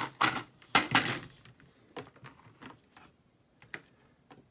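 Rigid clear plastic clamshell packaging crackling and snapping as it is handled and pried open, in two loud bursts within the first second and a half. Scattered light clicks and taps follow.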